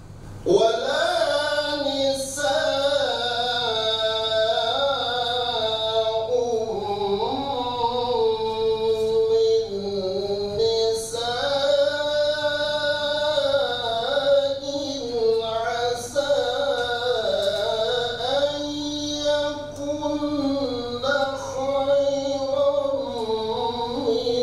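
A man chanting Quran recitation in the melodic tilawah style through a microphone, in long held phrases with ornamented rises and falls of pitch. He takes a short breath at the very start before beginning a new phrase.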